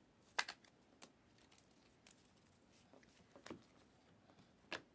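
Trading cards being handled during a pack opening: a handful of short, sharp card clicks and flicks spread a second or so apart, the loudest about half a second in, otherwise near silence.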